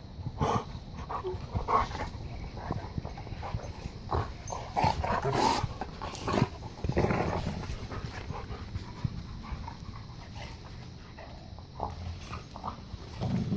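Two Airedale terriers play-fighting: irregular short dog noises and scuffling, busiest about halfway through.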